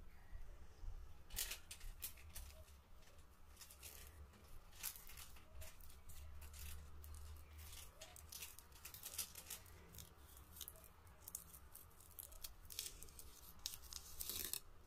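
Aluminium foil wrapper being peeled off a mini chocolate egg by fingers in cotton gloves: quiet, irregular crinkles and small tearing crackles.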